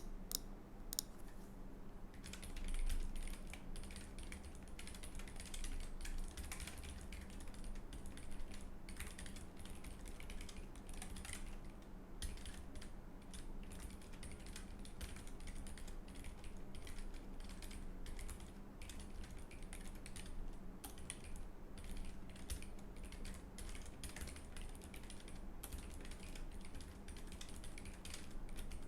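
Typing on a Keychron K3 low-profile mechanical keyboard fitted with Keychron's red optical switches, which are linear: a continuous patter of key clicks, with a faint steady hum underneath.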